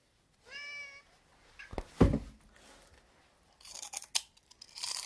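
A short cat meow, then a sharp thump about two seconds in, then crisp crunching near the end as dry potato sticks are bitten and chewed.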